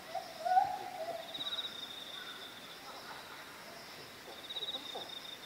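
Outdoor ambience: an insect's high pulsing buzz repeats about every three seconds, a short hooting call sounds about half a second in, and faint voices murmur in the background.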